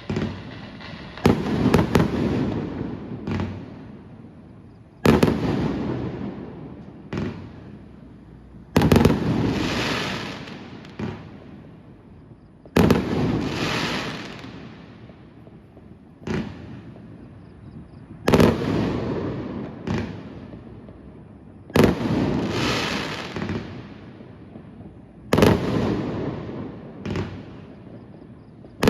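Fireworks display: about seven loud bangs, one every three to four seconds, each followed by a tail of sound that fades over two to three seconds, with a few smaller pops in between.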